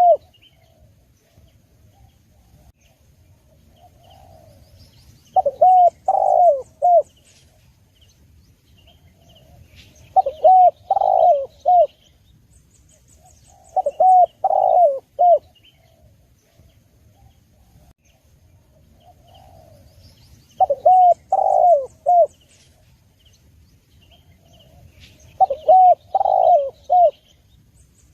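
Spotted dove (tekukur) cooing: phrases of three or four gliding coo notes repeated about every five seconds, five times, with faint chirps of other small birds between them.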